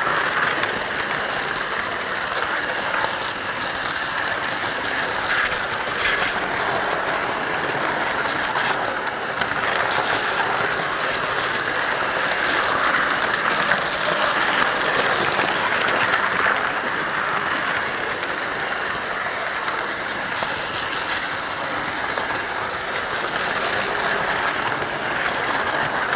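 Model trains running on the layout: a steady mechanical rattle of small wheels on the rails and the locomotives' electric motors, heard from a camera car riding on the train, with a few sharp clicks.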